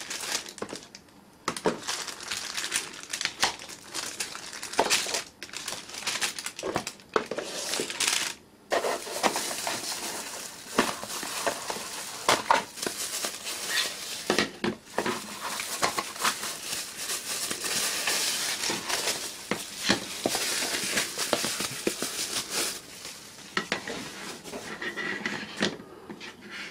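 Plastic bags and sleeves crinkling and rustling as antennas are handled and unwrapped, with light taps and clicks as pieces are set down on the table.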